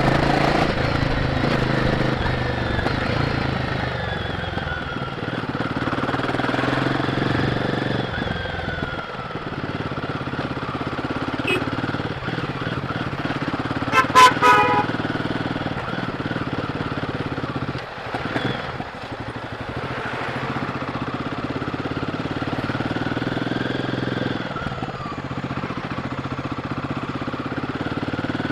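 Royal Enfield Guerrilla 450's single-cylinder engine on the stock exhaust, running under way with revs rising and falling through the ride. A horn gives two short blasts about halfway through.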